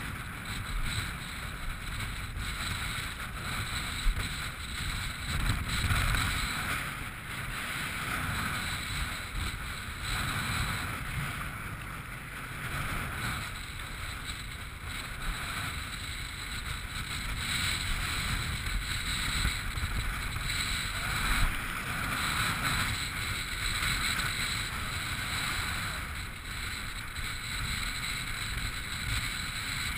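Wind buffeting the microphone over surf washing and fizzing across a shallow rocky reef, the wash swelling and ebbing. Two brief knocks, about four seconds in and again past twenty seconds.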